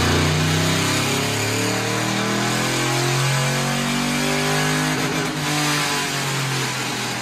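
Stock 4.8-litre LS V8 of a Chevrolet Silverado pickup running on a chassis dyno, its note wavering up and down in pitch, with a brief change in the sound about five seconds in and a slight easing near the end.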